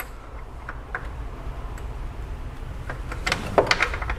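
Light clicks and knocks of hand tools against engine parts as a serpentine belt and its tensioner are worked into place, with a short cluster of knocks a little past three seconds in, over a steady low hum.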